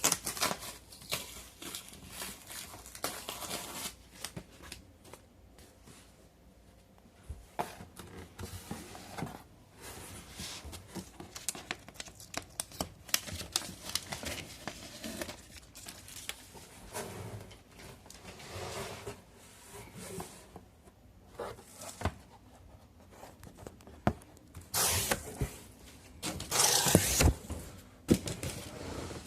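Packaging being torn open and handled: tearing, crinkling and scraping with scattered clicks and knocks. The longest, loudest stretches of tearing come near the end.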